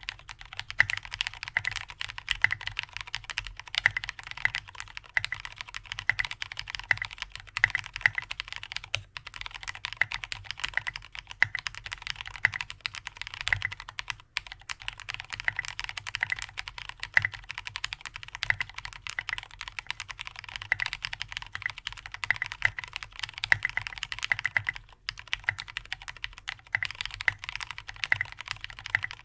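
Fast, continuous typing on an AR87 mechanical keyboard with lubed Cherry MX Black linear switches on an aluminium plate and SA-profile keycaps: a dense stream of keystroke clacks, with a few short pauses between bursts.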